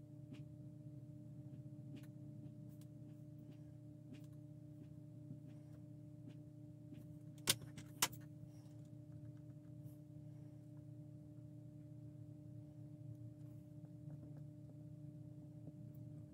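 Steady low electrical hum with faint small ticks of hand work, and two sharp clicks about half a second apart about halfway through.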